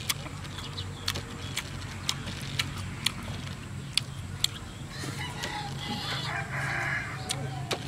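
Close-up eating sounds: chewing with sharp wet mouth clicks and smacks scattered through. A rooster crows in the background about two-thirds of the way in.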